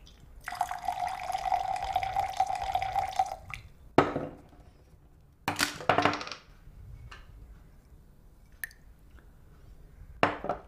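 Liquor poured from a glass bottle into a drinking glass for about three seconds, the liquid running steadily with a held ringing tone. A sharp knock follows about four seconds in as the bottle is set down on the table, then a few more glass knocks and clinks a little later and again near the end.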